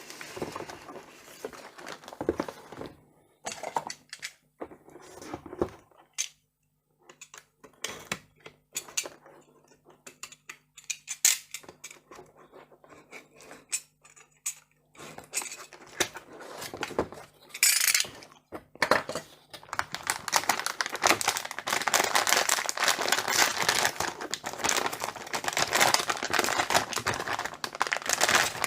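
A graphics card's packaging being opened and handled to unpack the card: scattered knocks, clicks and scrapes, then from about two-thirds of the way in a long, dense rustle of packaging.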